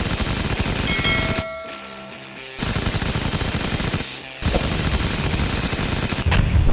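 Toy machine gun firing in rapid bursts: three long bursts with short pauses between them, the last one louder near the end.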